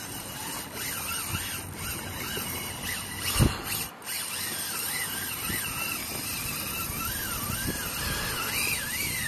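Fishing reel's drag squealing as a hooked fish strips line off: a whine that rises and falls in pitch and grows stronger in the second half. A single sharp thump about three and a half seconds in.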